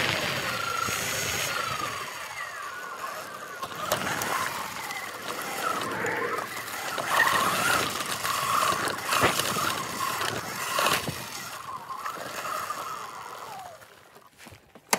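Segway X260 electric dirt bike riding on road and dirt trail: the motor's whine rises and falls with the throttle over wind and tyre noise, with a few sharp knocks from bumps. It dies away as the bike slows to a stop near the end.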